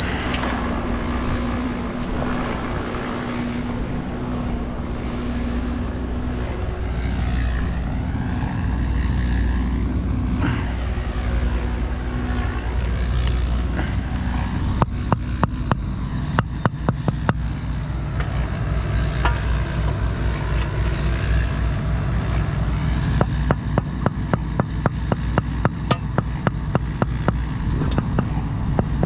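A motor running steadily with a low hum. From about halfway, a fast run of sharp ticks or taps sounds over it, about three or four a second.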